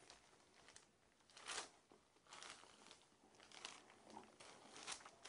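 Faint, intermittent crinkling of a wet, glue-backed HP Wall Art wallpaper panel being pulled out of the water tray and handled.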